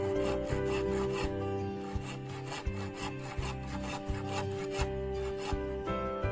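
Hand saw cutting through bamboo in steady back-and-forth strokes, about two to three a second, over background music.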